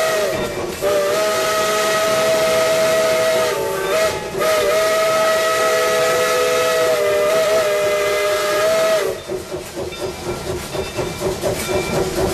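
Steam locomotive whistle sounding a chord of several notes in a long, long, short, long pattern, the signal for a road crossing. After the last long blast it stops, leaving the locomotive's exhaust chuffing steadily.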